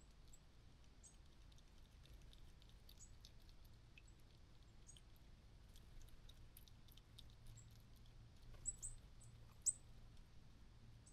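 Near silence with faint, scattered high-pitched clicks and ticks, and a few louder short ticks about nine seconds in.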